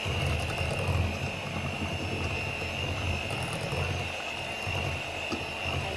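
Electrolux electric hand mixer running steadily with its beaters in thick carrot cake batter in a glass bowl: a constant high motor whine over a lower, uneven churning drone.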